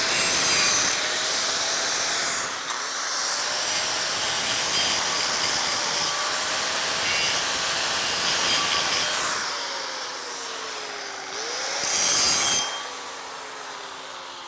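Angle grinder grinding 7018 weld metal out of a steel pipe joint, a hissing grind over a wavering motor whine whose pitch sags as it bites into the metal. Near the end it is switched off and winds down with a falling whine.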